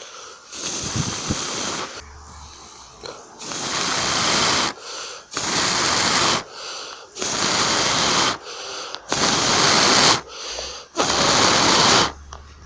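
A person blowing hard and repeatedly on a smouldering ember of rotten-wood tinder to fan it into flame. There are six long blows of about a second each, with quick breaths drawn in between.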